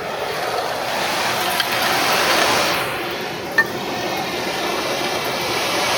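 ECOBULL TAN industrial vacuum, driven by a three-phase side-channel blower, sucking up foundry debris and drill chips: a steady rushing hiss of air through the hose, with two sharp clinks of metal chips.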